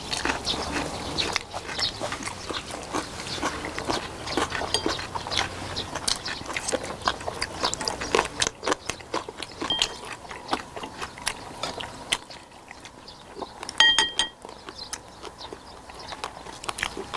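Close chewing and wet lip-smacking of people eating boiled pigs' feet (jokbal), a dense run of quick irregular smacks and clicks. A brief high-pitched tone sounds about three-quarters of the way through.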